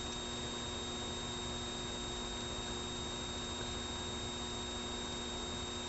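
Steady electrical mains hum with a faint even hiss, unchanging throughout.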